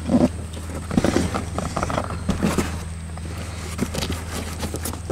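Rustling, scraping and clicking of packaging being handled and opened, over a steady low hum.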